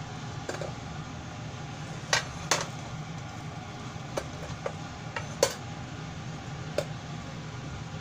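Kitchen ventilation fan running with a steady hum, and about eight sharp clicks and taps scattered through while a flame is put to the solid-fuel tablet under a small metal mini kamado to relight it after it went out.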